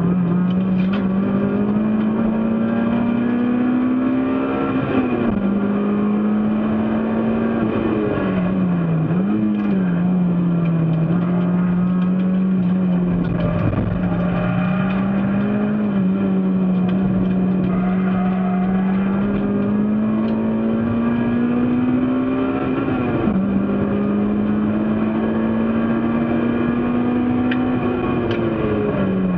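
Race car engine running hard at high revs: one continuous engine note whose pitch climbs slowly as the car gathers speed. The pitch falls sharply at gear changes a few times, with a couple of short dips and blips where the car slows for corners.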